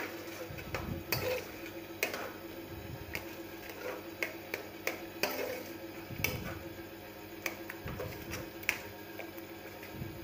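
A metal spoon scraping and knocking against a steel karahi as a thick, bubbling tomato masala is stirred and mashed, giving irregular sharp clicks and a few soft thuds.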